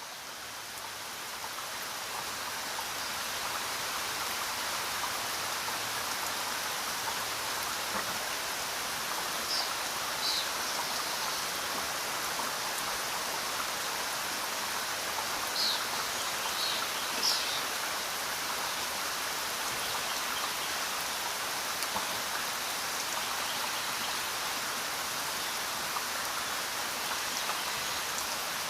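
Steady rain falling, an even hiss of drops that swells up over the first few seconds and then holds level. A few short, high chirps sound over it about a third to halfway through.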